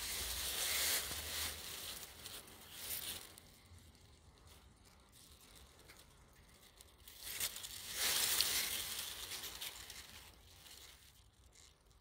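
Leaves rustling in two swells of hiss, one in the first three seconds and another from about seven and a half to ten and a half seconds in.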